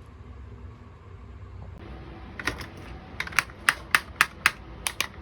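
A faint steady hum, then from about halfway a run of about nine sharp clicks and taps, roughly three a second and unevenly spaced.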